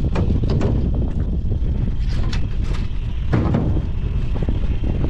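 Steady low rumble of wind on the microphone, with scattered knocks and clacks as a gill net's rope, floats and lead weights run out over the side of an aluminum boat. A longer, louder rush comes a little past halfway.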